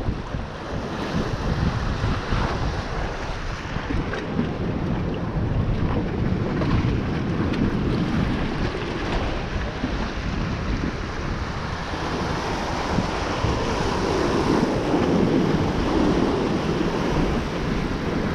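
Strong wind buffeting the microphone over the steady wash of rough surf, swelling a little about two-thirds of the way through.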